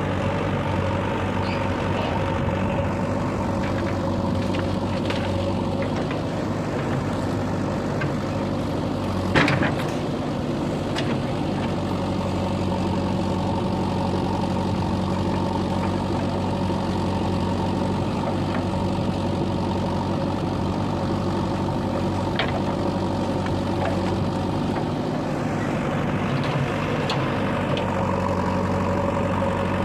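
Heavy diesel engine of a backhoe or tractor running steadily at a constant speed. One sharp knock about nine seconds in, with a few fainter clicks scattered through.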